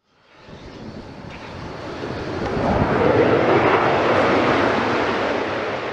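Rushing noise of a passing jet aircraft, swelling from nothing to a peak about three seconds in and then fading away.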